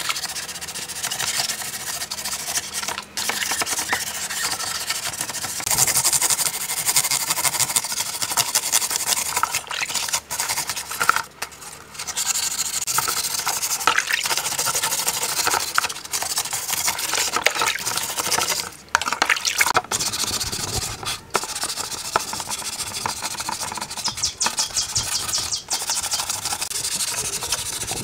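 A scouring pad scrubbed back and forth over an M16-style rifle submerged in a basin of water, with the water sloshing. The scrubbing runs on in quick strokes with a few short pauses.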